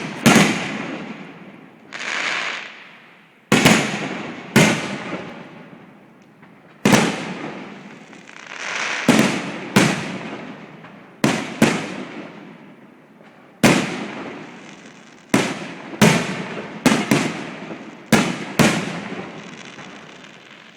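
Fireworks going off: about fifteen sharp bangs at irregular intervals, each trailing away over a second or two, with a few softer sounds swelling up between them.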